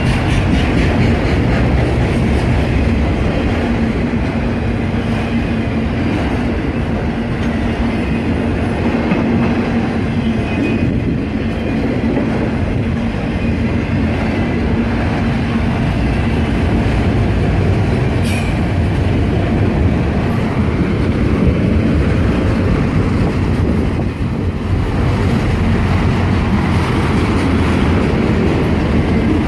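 Freight train cars rolling past close by, steel wheels clattering over the rails with a steady rumble. A brief high-pitched screech cuts in about two-thirds of the way through.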